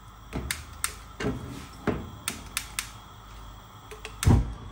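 Gas stove burner being lit: a run of sharp igniter clicks at uneven spacing, then one louder low thump about four seconds in.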